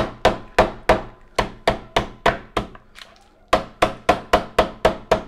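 The spine of a chef's knife whacking lemongrass stalks against a wooden cutting board to bruise them, breaking up the fibres and releasing the oils. A quick run of sharp knocks, about three or four a second, stops briefly around the middle and then starts again.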